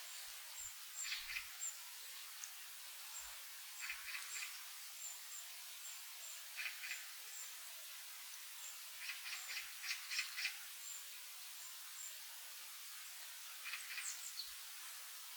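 Small birds calling in woodland: short clusters of sharp chirps every few seconds, over a run of thin, high, evenly spaced notes that comes and goes.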